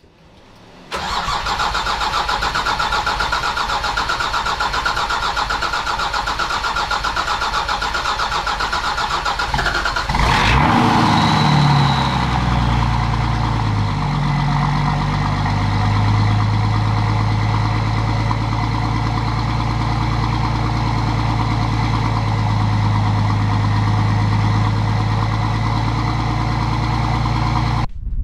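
Nissan Patrol's RD28 2.8-litre straight-six diesel being cranked for several seconds, catching about ten seconds in, revving briefly and then settling to a steady idle, heard at the exhaust.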